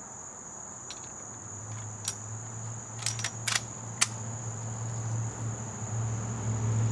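Steady high chirring of crickets, with a few sharp clicks in the middle, and a low hum that comes up from about a second and a half in.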